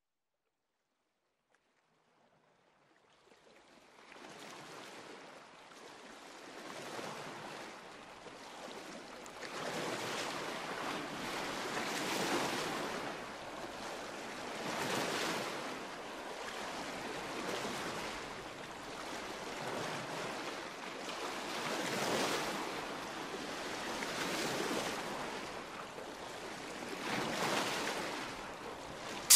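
Ocean surf: waves washing in, the rushing noise swelling and ebbing every few seconds. It fades in after about four seconds of silence.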